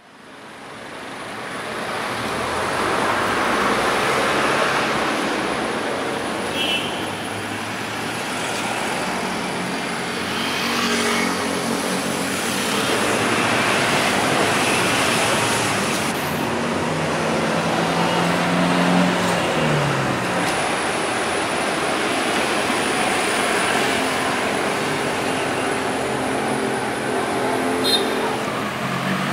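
Road traffic: cars and trucks passing over a steady road noise, their engine notes rising and falling as they go by. The sound fades in over the first couple of seconds.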